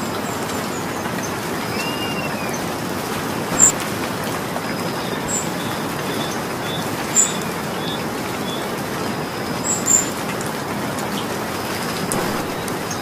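Steady rainfall hissing evenly, with a few sharp high ticks of drops striking about three and a half, seven and ten seconds in. Faint bird chirps sound early on.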